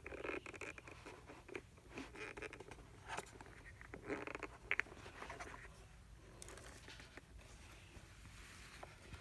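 Clicks and scraping of the plastic dustbin and housing of an Aposen A450 robot vacuum being handled and pried at while someone works out how to open it. The clicks and rustles come thickest in the first half, then fade to faint rustling.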